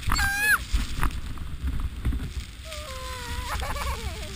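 Sledge sliding fast down a snowy luge run, a steady low rumble of the sled over the snow. A short high-pitched cry from a rider at the very start, and more wavering cries from the riders in the last second and a half.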